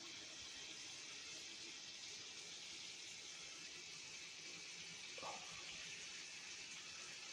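Faint steady hiss, with one brief short sound about five seconds in.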